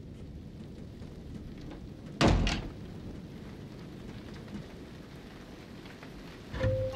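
Low, steady rumbling background noise, broken about two seconds in by a loud double thud, with another duller thud near the end.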